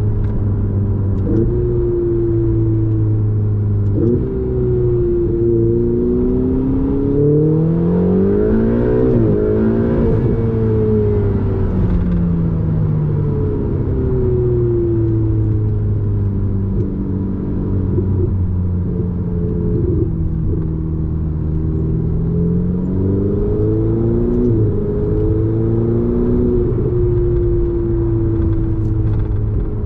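Ferrari 488 GTB's twin-turbo V8 with a Capristo exhaust, heard from inside the cabin. The revs rise and fall and step abruptly at gear changes, with a sharp climb about eight to ten seconds in. A steady low road and tyre drone runs underneath.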